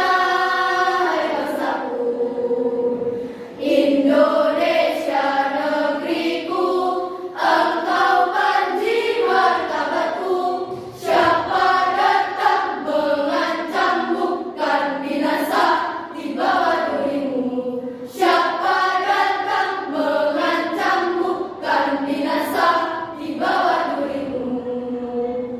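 School choir of junior-high students singing together, voices moving through a melody with short breaths between phrases; the singing cuts off suddenly at the end.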